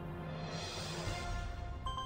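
Online slot game music: steady sustained tones with a swelling whoosh, and a sharp click near the end as the game screen changes.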